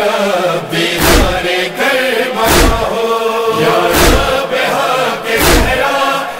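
Urdu nauha (Shia lament) sung by chanting voices, with a deep thump keeping time four times, about every second and a half.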